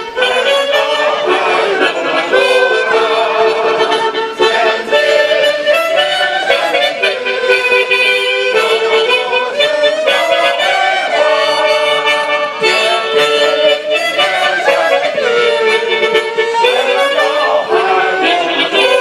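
Music: a reedy melody played over held notes, in a steady flowing line.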